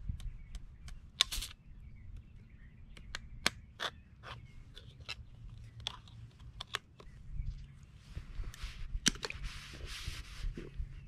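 A metal utensil tapping repeatedly on the top of an aluminium kombucha can, a sharp tick two or three times a second. About eight seconds in, a hiss with a sharp click in it as the fizzy can is opened.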